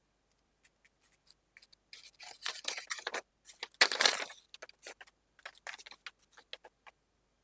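Phone retail box and its packaging being handled and opened: plastic wrap tearing and cardboard scraping in two longer rustling stretches, with scattered light clicks and taps.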